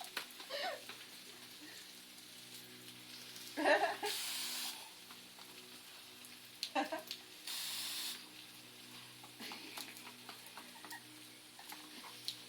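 Water splashing or running in two short bursts, one about four seconds in and one near eight seconds. Between them come a few brief high vocal sounds from a small child.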